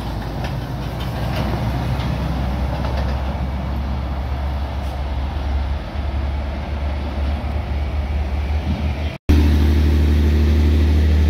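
Heavy vehicles on a highway: engine rumble and tyre noise as traffic passes. About nine seconds in, the sound cuts off abruptly and gives way to a louder, steady low engine drone of a heavy vehicle close by.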